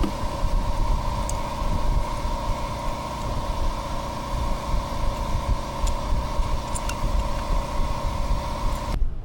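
A machine running steadily: a constant hum over a low rumble, cut off abruptly near the end.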